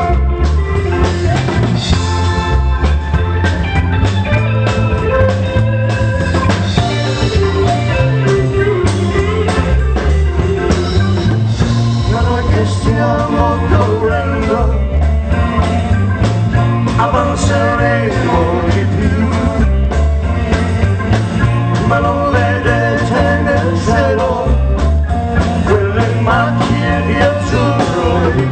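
A live pop band playing a song, with drums and a bass line under guitar and keyboards.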